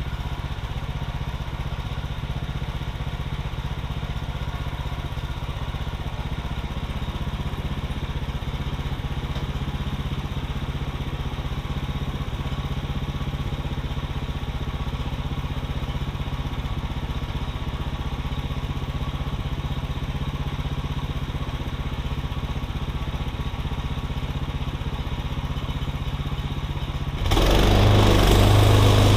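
Woodland Mills HM126 portable bandsaw mill's gas engine idling steadily, then throttled up and running much louder near the end as the mill is brought up to cutting speed.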